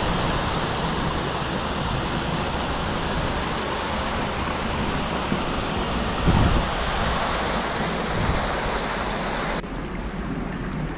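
Small moorland stream cascading over rock steps in a little waterfall: a steady rush of water, with a brief low thump about six seconds in. Near the end it drops suddenly to a quieter, duller rush.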